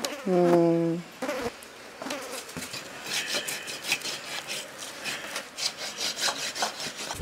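A short steady pitched call near the start, then from about two seconds in a rapid run of rasping, scraping strokes.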